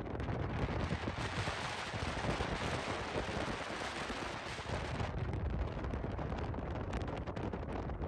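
Wind buffeting the microphone from a moving car: a steady rush and low rumble. Crackling gusts come thicker about five seconds in.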